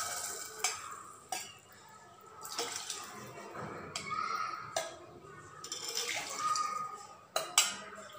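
A stainless steel spoon knocking and clinking against a steel pot several times, over the soft bubbling and fading sizzle of water just poured onto hot oil and spices.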